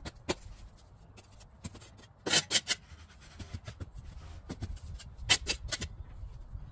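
Scraping, rubbing strokes in two quick groups of about three, with scattered lighter clicks and rustles between them.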